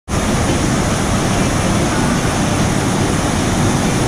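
River water rushing steadily as small waterfalls pour over rock ledges into the pool, heard from close to the water's surface with a deep rumble.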